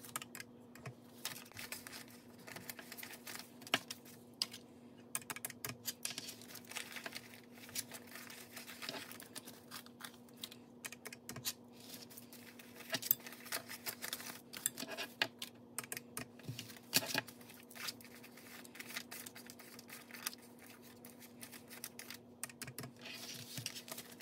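Paper banknotes being counted by hand: irregular crisp flicks, snaps and rustles of bills.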